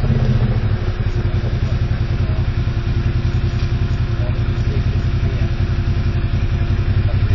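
Vehicle engine running steadily under load, a fast, even low-pitched pulsing with a steady hum above it.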